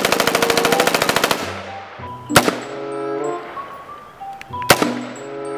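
M16-pattern rifle firing: a rapid burst of shots lasting just over a second, then two single shots a little over two seconds apart. Background music plays underneath.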